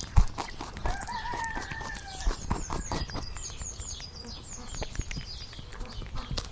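A rooster crows once, about a second in: a single wavering call lasting just over a second. Small birds chirp high and repeatedly throughout, with scattered knocks and a sharp low thump near the start.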